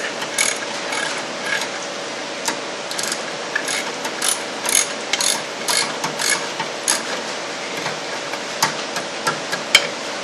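Socket ratchet clicking in short, irregular runs as nuts are run onto the studs of a brake master cylinder, with a sharper metallic click near the end.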